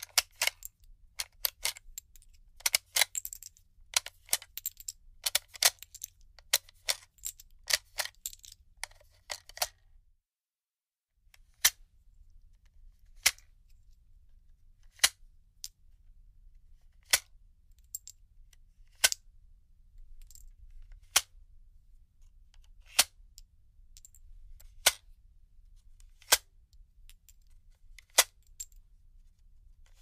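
Cartridges being unloaded from a gun magazine: a quick, irregular run of sharp metallic clicks for about ten seconds, a one-second pause, then single sharp clicks about every two seconds.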